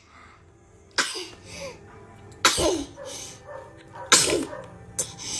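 A baby sneezing three times in a row, sharp sudden sneezes about a second and a half apart, each with a brief falling pitch, and a smaller sneeze-like burst near the end.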